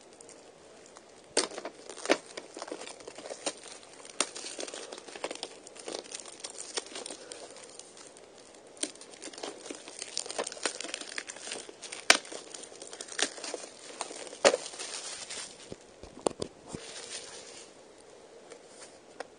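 Plastic shrink-wrap being torn and crinkled off a VHS tape case: irregular crackling with a few sharp clicks, dying down near the end.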